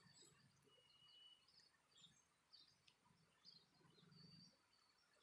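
Near silence, with a few faint, short bird chirps scattered through it.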